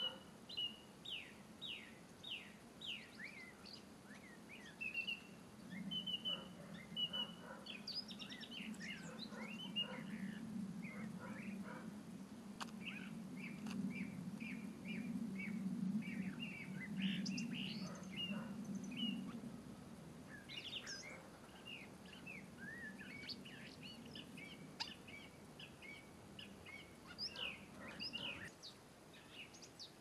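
Small songbirds chirping and calling in short, scattered notes. A low steady drone swells in the background from about five seconds in and fades away by about twenty seconds.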